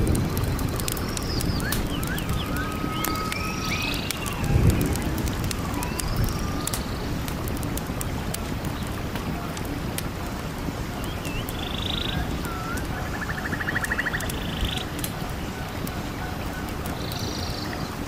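Forest ambience: a steady rush of wind with low gusts near the start and about four and a half seconds in, under scattered short chirps and whistled calls of small birds. A rapid trill sounds about thirteen seconds in.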